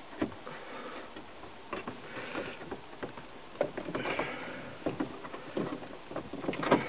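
Scattered plastic clicks and knocks with short rustles from hands working an overhead console's retaining clips into a truck's roof.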